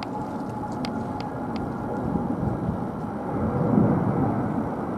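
Boeing 787-9 Dreamliner's twin jet engines on climb-out after takeoff: a steady jet rumble that swells louder about two and a half and nearly four seconds in.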